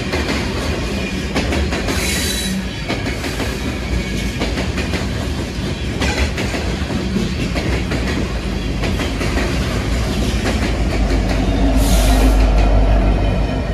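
Freight train of covered hopper cars rolling past at speed, wheels clacking over rail joints, with brief squeals about 2 seconds in and again near the end. Near the end a diesel locomotive passes close, and its running engine makes the sound its loudest and deepest.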